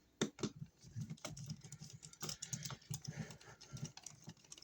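Light, irregular clicks and taps of an electrical wall outlet being handled and fitted into its box with a wire-loop shim as a spacer.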